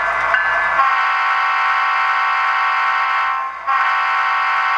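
The horn sound of an HO-scale Athearn SD60E model locomotive's DCC sound decoder, played through the model's onboard speaker. It gives two long chord blasts: the first starts about a second in, and the second follows a short break about three and a half seconds in.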